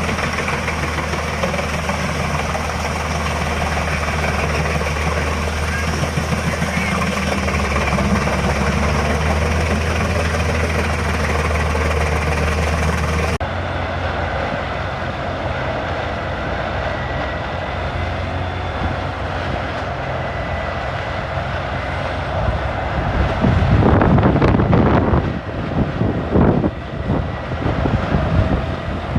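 Heavy forestry wood-processing machinery running: a steady deep engine drone under the noise of wood being shredded. The sound changes abruptly about 13 seconds in, and several loud surges of noise come a little after 24 seconds in.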